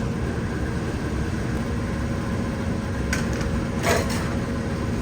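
Heat gun running with a steady low blowing hum, warming a fixed-temperature heat detector toward its trip point during a fire alarm test. A brief short sound comes near four seconds in.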